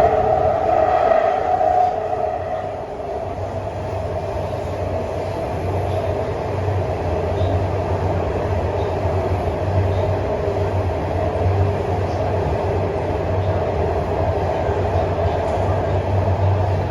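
CSR-Zhuzhou Type A metro train running on Shenzhen Metro Line 1, a steady hum and rumble that eases slightly about two to three seconds in.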